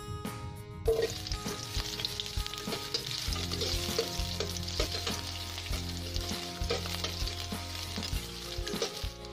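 Chopped red onion sizzling in hot cooking oil in a stainless steel pan while a spatula stirs it, the frying hiss starting suddenly about a second in and holding steady.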